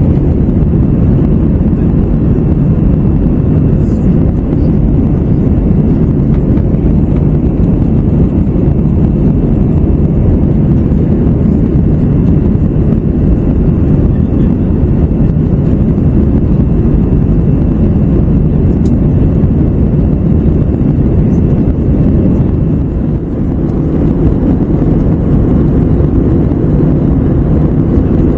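Airbus A321 cabin noise heard from a window seat during the climb: a loud, steady low rumble of the engines and airflow past the fuselage, with a faint high steady whine on top.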